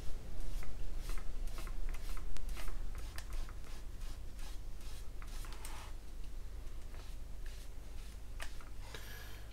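A damp towel rubbed in quick short strokes over the plastic fuselage of a scale-model aircraft, wiping and streaking the weathering wash. It makes a run of soft scratchy rubs, busiest in the first few seconds, then sparser, with a few sharper ones near the end.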